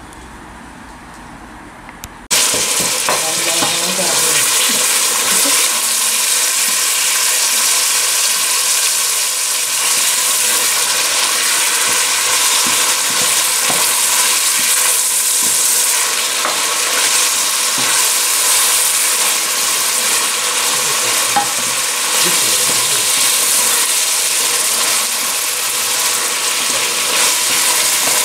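Food in a pan of hot oil frying with a loud, steady sizzle that starts suddenly about two seconds in.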